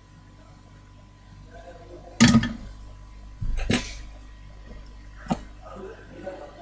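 Three sharp clinks or knocks of small hard objects, about a second and a half apart, over a faint steady hum.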